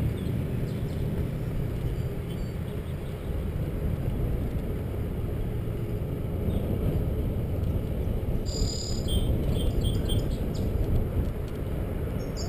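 Steady wind and rolling noise from riding a bicycle along a trail, with wind on the microphone. A few short high chirps come about two-thirds of the way through and again near the end.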